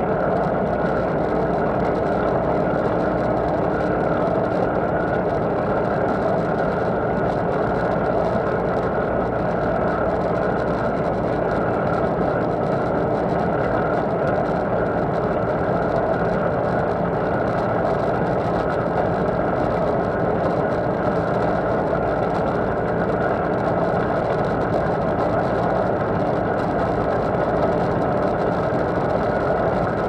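John Deere CTS rice combine running steadily under harvesting load, heard from its header: a constant engine-and-machinery drone with a few steady tones over it, as the reel and auger take in the rice.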